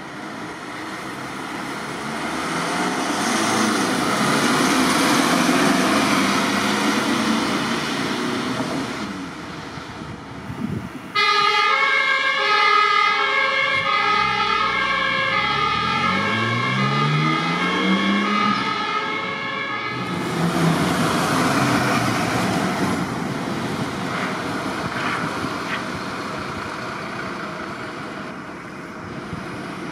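Road and vehicle noise swells and fades. Then a German two-tone emergency-vehicle siren (Martinshorn) starts abruptly and alternates between its two pitches for about nine seconds, with an engine rising in pitch beneath it as it accelerates. The siren cuts off suddenly and road noise returns.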